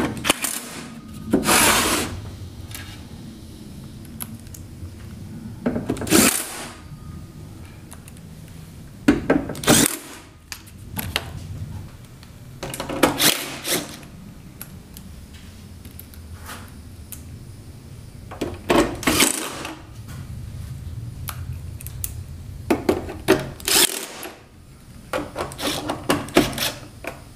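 Cordless drill-driver run in about eight short bursts of a second or so each, with pauses between, driving the screws back into the welder's sheet-metal case.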